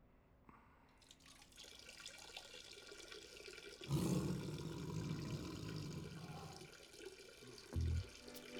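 A man urinating into a toilet bowl: a splashing stream of water that grows from about a second in, is loudest from about four seconds in, then tapers off. A deep thump comes in near the end.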